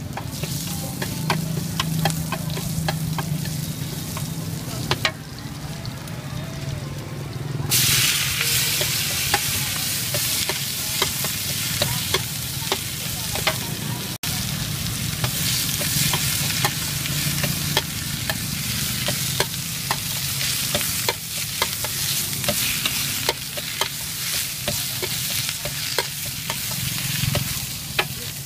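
Stir-fry sizzling in a large wok of hot oil, with a metal spatula clacking and scraping against the pan many times. About eight seconds in, the sizzle jumps suddenly louder, as leafy greens go into the hot oil.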